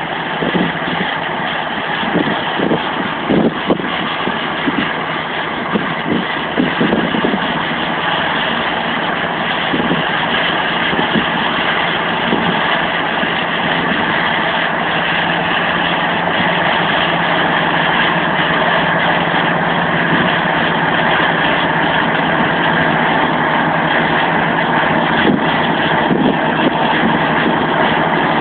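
Caterpillar D8T bulldozer's diesel engine running steadily while the dozer pushes a heap of sand, growing slowly louder as it comes closer. A few knocks stand out in the first several seconds.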